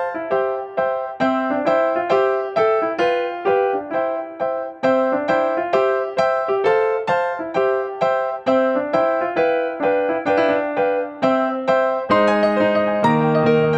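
Background music played on piano: a steady, even run of single notes, with a lower accompaniment coming in near the end.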